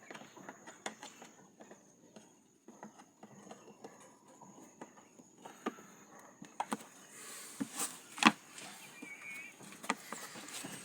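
Scattered clicks and knocks of plastic and metal parts and tools being handled while a small twin-tub washing machine is put back together, with one sharp knock about eight seconds in.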